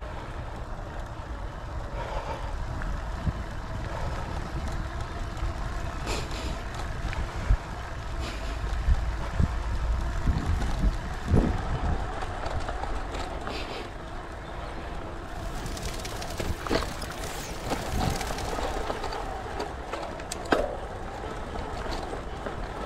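Boardman hybrid e-bike riding over a bumpy grass and dirt track, heard from a handlebar-mounted camera: a steady low rumble, with sharp knocks and rattles from the bike jolting over bumps, several of them between about ten and twenty-one seconds in.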